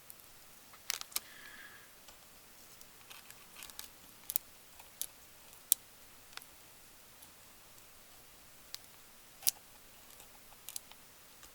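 Scattered sharp clicks and light taps, about a dozen at uneven gaps, from a soldering iron and copper solder braid worked over the BGA pads of a circuit board.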